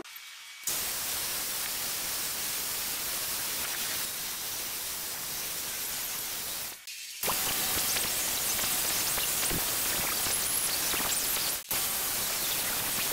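Disc grinder with a felt polishing disc buffing an aluminium engine head cover with rubbing compound, played back sped up so it comes across as a steady hiss. It breaks off briefly about seven seconds in and again near the end.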